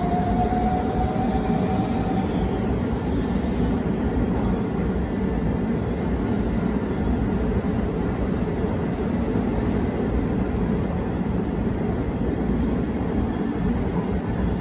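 JR West electric train running along the platform, a steady rumble of wheels and running gear. In the first two seconds a faint motor whine rises slightly in pitch.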